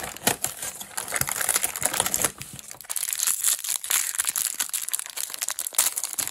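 A small plastic blind-bag packet crinkling and tearing as it is opened by hand, with many sharp crackles.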